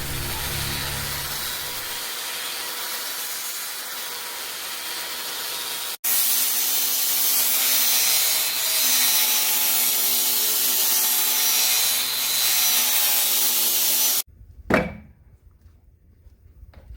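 A power tool grinding steel, running steadily with a faint motor whine. It breaks off for an instant about six seconds in, stops suddenly near the end, and is followed by a single sharp knock.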